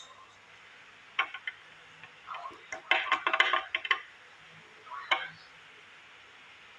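Long nails clicking and tapping against a small glass nail polish bottle as it is handled: a single click about a second in, a quick flurry of clinks around three seconds, and one more click near five seconds.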